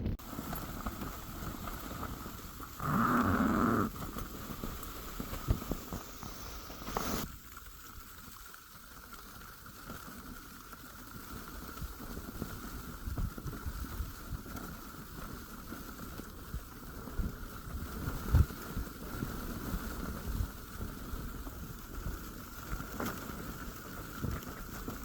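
Blizzard wind gusting and buffeting with a steady patter and many low thuds, with a short louder sound about three seconds in.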